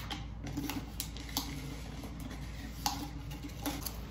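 A handful of faint, sharp clicks and taps from small objects being handled at a desk, spread a second or so apart over a steady low room hum.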